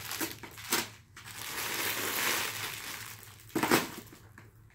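Wrapped Halloween candy rustling and crinkling as handfuls are scooped from a pile and dropped into a plastic bucket, with two sharper crackles, one under a second in and one near the end.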